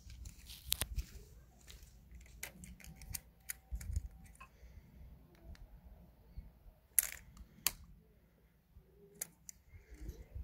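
Keyring with a remote fob being handled at a motorcycle's ignition: scattered faint clicks and light rattles, the loudest two about seven seconds in. A few faint short beeps sound about three to four seconds in.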